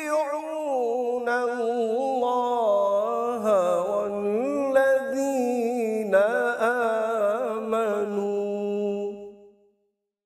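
A man reciting the Quran in melodic tajweed style: one long, ornamented phrase with a wavering, held pitch. It breaks off about nine and a half seconds in.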